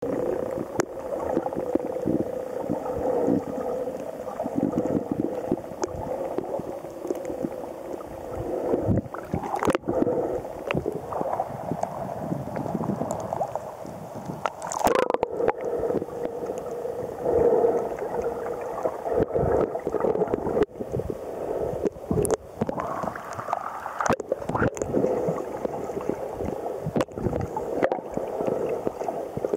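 Muffled water sloshing and gurgling as heard by a camera held underwater, with a low steady hum and many scattered clicks and knocks. There is a louder splash about halfway through as the camera breaks the surface.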